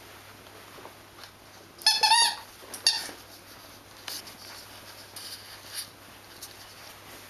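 Squeaky toy squeaking as a miniature schnauzer puppy bites it at play: one long squeak about two seconds in, then a shorter one just after. Softer rustles and small knocks of play follow.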